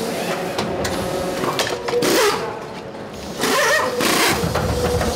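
Pneumatic wheel guns rattling in several short bursts as they spin wheel nuts off and on during a race car's tyre change.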